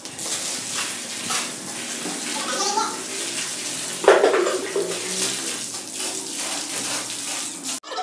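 Water poured from a plastic jug splashing steadily onto a floor bed of sand and broken stone, wetting it down during floor preparation.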